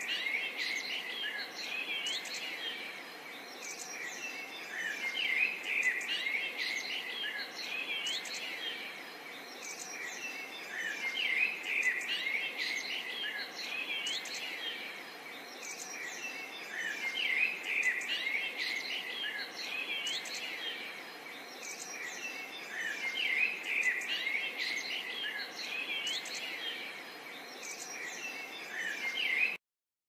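Many birds chirping and singing together in a busy chorus of short tweets and quick sweeping calls, over a steady background hiss.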